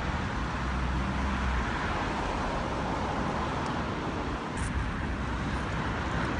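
Steady city street traffic noise of cars running past, with a deep engine rumble for about the first second and a half.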